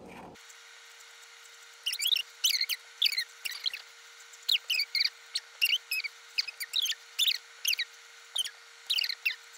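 Black marker scratching on paper in many short, quick strokes while rows of scales are drawn, the sound sped up so the strokes come out high and squeaky. The strokes start about two seconds in and repeat two or three times a second.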